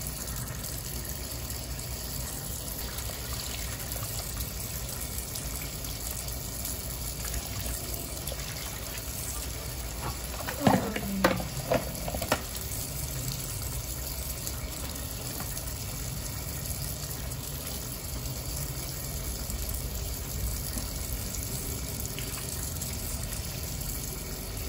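Water running steadily from a tap, splashing over fruit being rinsed by hand in a plastic bowl. A few louder knocks come close together about halfway through.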